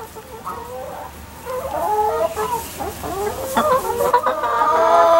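Brown laying hens clucking and calling, wavering calls that get louder and busier through the second half.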